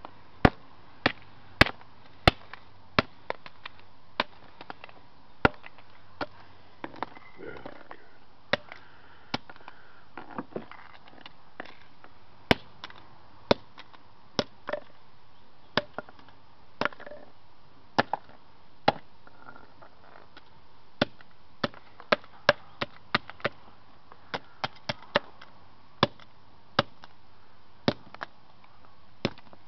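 Repeated sharp blows smashing an old cell phone, irregular strikes about one or two a second, some coming in quick clusters.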